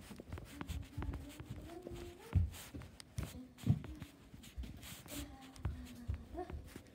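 Irregular footsteps and knocks of a handheld phone camera being carried and bumped while walking across a wood floor and into a pantry, with a faint voice now and then.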